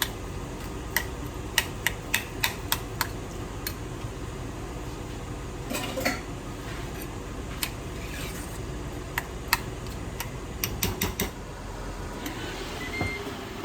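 Kitchen utensils clinking and tapping against dishes in scattered sharp knocks, several in quick succession near the start and again near the end, over a steady low background hum.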